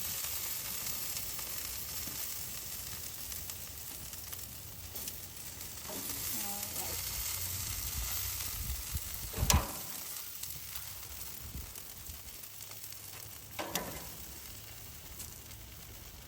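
Meat sizzling on a grill, a steady hiss that slowly fades. A sharp metal clank about nine and a half seconds in, and a lighter knock about four seconds later.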